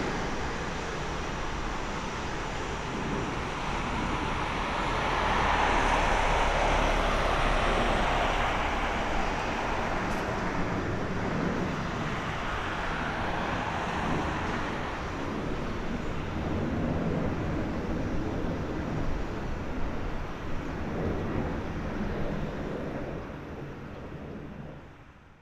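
Boeing 787-10 airliner's Rolls-Royce Trent 1000 turbofans running at low thrust as it rolls along the runway after landing: a steady jet rush that swells about five seconds in, eases as the aircraft moves off, and fades out at the end.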